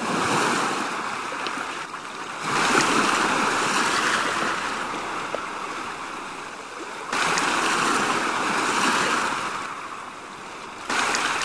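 Sea surf washing in a steady rush that swells and fades, growing suddenly louder about two and a half seconds in and again about seven seconds in.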